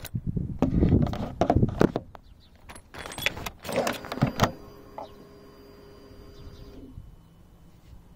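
Handling noise of a hand-held camera, rustling and knocking, with several sharp clicks about three to four and a half seconds in as hands work around the motorcycle's dash. A faint steady hum follows and stops about seven seconds in.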